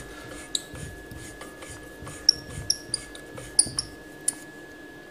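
Welding gas cylinder valve and regulator being turned shut by hand: scattered small metallic clicks and several short high squeaks, bunched between about two and four seconds in.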